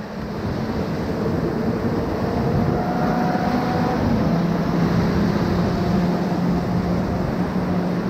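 Whitewater rapids rushing steadily around an inflatable raft, heard close to the water.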